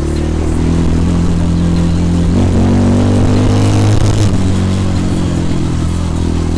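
250 cc enduro motorcycle engine running loud and close, with the revs lifting a little around the middle and then settling.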